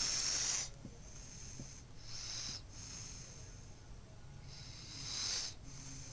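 Snoring: hissing breaths, one at the start, a short one about two seconds in, and a longer one that swells about five seconds in.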